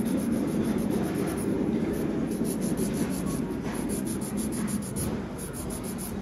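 Nail file or buffer being rubbed over fingernails in rapid, repeated strokes, shaping and smoothing the dip-powder nails.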